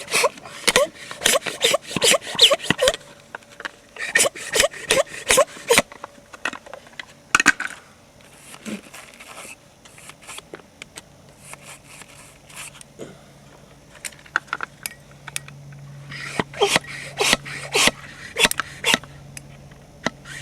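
A wire hole-cleaning brush scrubbing in and out of a freshly drilled 12 mm anchor hole in bursts of fast, rhythmic scraping strokes. It is the brush-and-blow cleaning that clears drill dust from the hole before a resin capsule and bolt go in.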